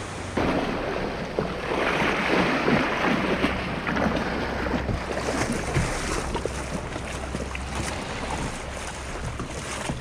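Shallow surf washing and swirling around a kayak as it is pushed out through the breaking waves. The water surges loudest a couple of seconds in. Wind rumbles steadily on the microphone.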